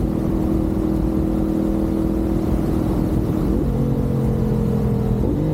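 CFMoto 450SS motorcycle's parallel-twin engine running under way, with a quick change in engine pitch about three and a half seconds in and again near the end as it shifts gear. Wind noise rumbles on the microphone underneath.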